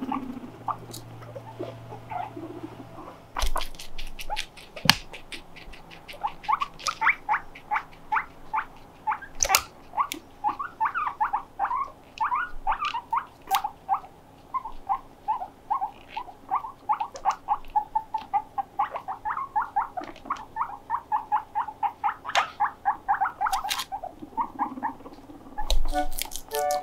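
Guinea pigs squeaking in a long run of short, quick chirps, about four or five a second, with a couple of sharp knocks in the first few seconds.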